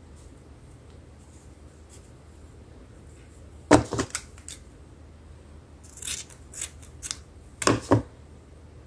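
Scissors snipping: a few sharp cuts a little before halfway through, then a second run of snips in the last few seconds.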